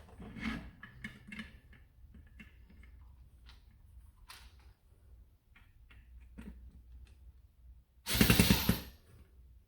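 Light clicks and taps of small parts and screwdriver bits being handled, then about eight seconds in a power screwdriver runs in one loud burst just under a second long.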